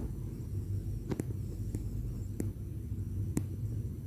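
Low steady background hum, room tone between words, with a few faint short clicks spread through it.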